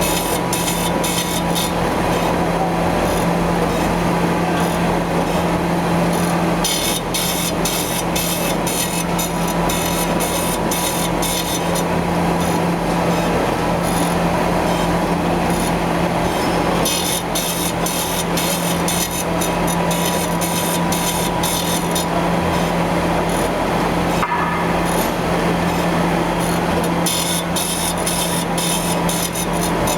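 Gear-grinding machine running: a steady low hum and a thin constant tone under a grinding noise, with high, rapid crackling that comes and goes in stretches of several seconds.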